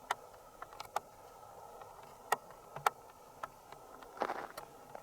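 Footsteps on dry, crunchy badlands ground: irregular light ticks and crunches, with a longer scuffing crunch about four seconds in.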